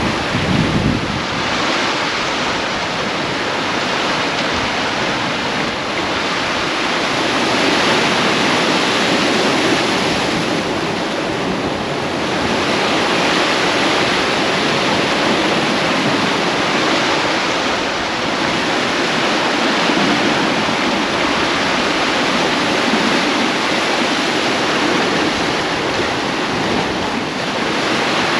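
Sea water rushing and breaking along the hull of a sailing catamaran, its foaming wake swelling and easing every few seconds, with some wind on the microphone.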